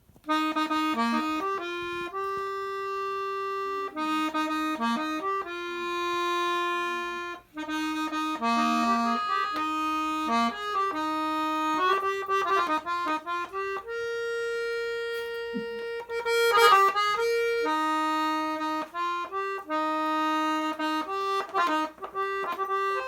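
Accordion playing a tune: held reed notes with their chords, changing every second or so, with a few quick runs of notes.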